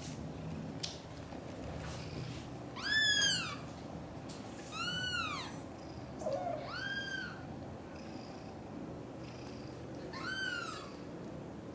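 British shorthair kitten meowing four times: short, high calls that rise and fall in pitch, spaced a couple of seconds apart, the last coming after a longer pause. A low steady purr runs underneath.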